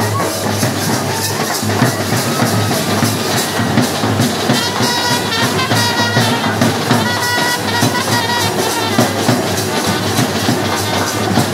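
Procession band drums beating a fast, steady rhythm, with a wind instrument playing a melody over them for a few seconds in the middle.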